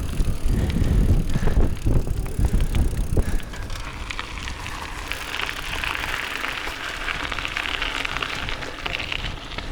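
Wind buffeting the microphone with a low rumble for the first few seconds, then dropping to a quieter, steady crackling hiss full of fine ticks.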